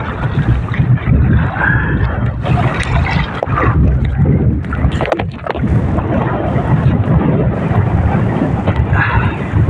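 Strong wind buffeting the microphone with a heavy low rumble, over the rush and splash of a rough sea around an outrigger boat.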